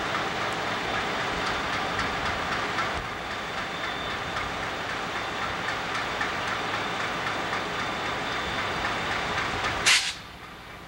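Diesel locomotives rolling slowly through a curve in a rail yard: a steady rush of wheel-on-rail noise with a faint, thin high tone over it. Near the end a brief sharp high-pitched burst, after which the sound becomes quieter.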